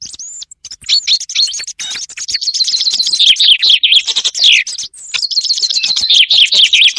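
Recorded common chaffinch song mixed with softer song thrush phrases. After a few scattered short notes, a fast trill runs down into a falling end-flourish about four and a half seconds in. A second trill starts about a second later.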